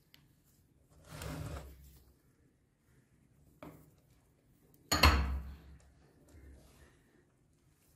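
Metal meat-grinder parts being handled over a plate of crumbled soap. There is a scraping rustle about a second in, a short sharp knock, and then a loud knock that fades away briefly about five seconds in.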